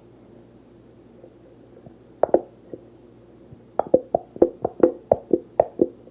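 A nearly empty plastic glue bottle knocked repeatedly to get the last thick glue out: two knocks, then a quick run of about nine hollow, slightly ringing knocks, some four or five a second.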